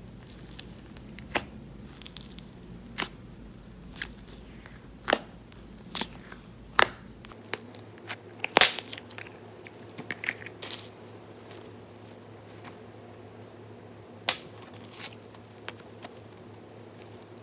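Plastic bubble-wrap packaging being unwrapped from a slime container: irregular sharp crackles and crinkles, loudest about eight and a half seconds in, thinning out to occasional clicks in the last several seconds.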